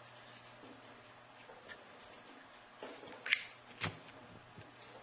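Zippo lighter being handled in a trick: faint metallic ticks, then two sharp clicks about half a second apart a little over three seconds in.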